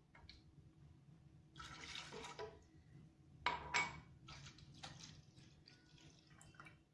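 Milk poured from a bottle into a blender jar, a soft pouring with light drips and ticks. About halfway through come two sharp knocks close together, as a drinking glass is set down on the table.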